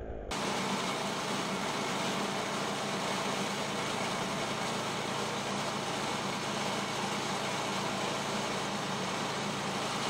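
Woodland Mills portable bandsaw sawmill's engine running steadily.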